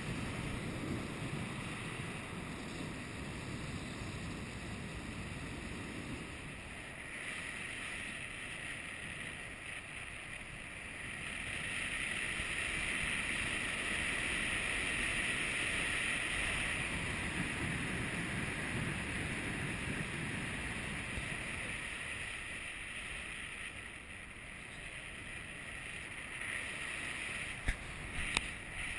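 Airflow rushing over an action camera's microphone in paraglider flight, a steady noise that swells through the middle and eases off again. Two sharp clicks near the end.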